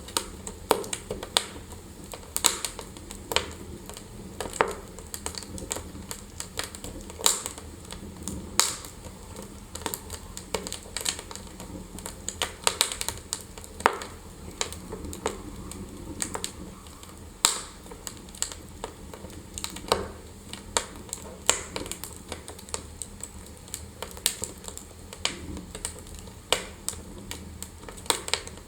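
Wood fire burning in a fireplace, crackling and popping irregularly with many sharp snaps over a steady low rumble of the flames.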